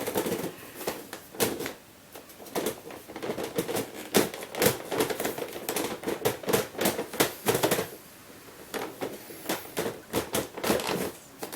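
Layers of a giant 30 cm 3x3 cube puzzle being turned by hand, the large plastic pieces clacking and knocking in quick irregular turns as corner cutting is tried, with two short pauses. The turning is loud, louder than a regular-size cube.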